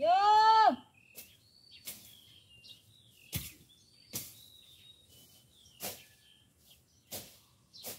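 A woman's loud shout of "Yo!" at the start. Then comes a run of sharp strikes, one every second or so, from weeds being cut by hand with a blade, with small birds chirping between them.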